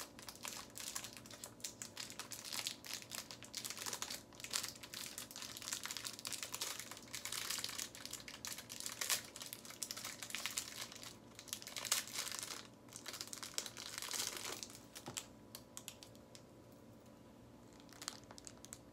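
Small clear plastic packet crinkling and crackling as it is handled and opened by hand to take out a bead bracelet; the dense crackling dies down about three-quarters of the way through, leaving only a few light ticks.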